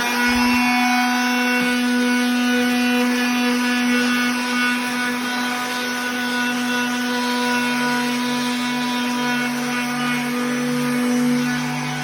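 Electric power sander running steadily at full speed with an even, high motor hum, then winding down in pitch as it is switched off at the very end.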